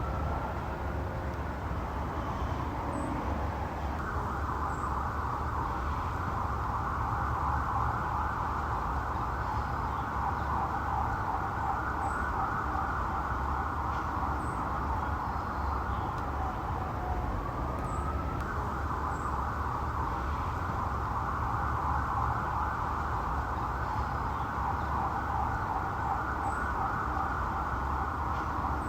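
Police car siren sounding: a rising wail that switches to a fast warble about four seconds in, winds up again and switches back to the fast warble about two-thirds of the way through. A steady low rumble runs underneath.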